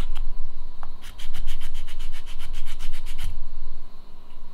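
Fine sanding stick rubbed quickly back and forth over a black plastic RC car part, smoothing the glued-in plastic sprue plugs flush. A few light strokes, a short pause, then a fast run of about eight strokes a second that stops a little over a second before the end.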